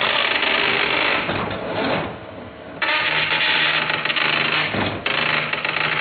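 Dot matrix printer's print head buzzing through a line of print as a dense, rapid clatter over a steady hum. It drops away for under a second about two seconds in and briefly again near five seconds, then carries on.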